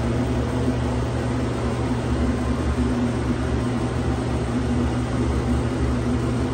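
Steady mechanical hum with an even hiss from a running air-handling fan, unchanging throughout.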